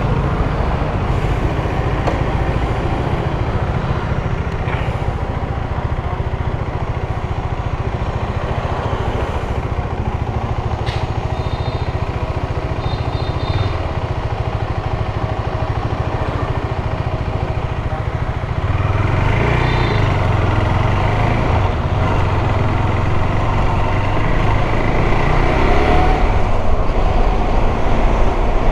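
KTM 390 Adventure's single-cylinder engine running steadily under way, mixed with wind rushing past the rider's microphone; it gets louder about two-thirds of the way through.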